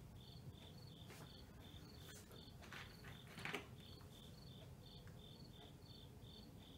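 Faint, steady chirping of a cricket, about three high chirps a second, over near silence, with a soft brief rustle about three and a half seconds in.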